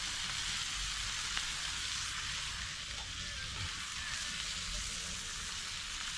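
Food sizzling as it fries in a hot pan, a steady hiss with a few faint ticks.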